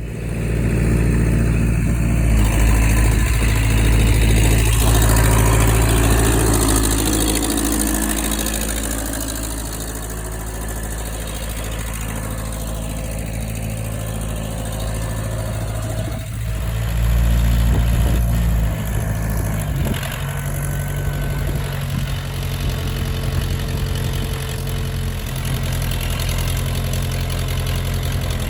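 Heavy-equipment engine running steadily, working harder over the first several seconds and again briefly in the middle.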